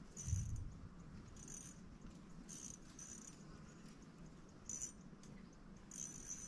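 A low knock about a third of a second in, then faint short high-pitched insect chirps repeating about once a second.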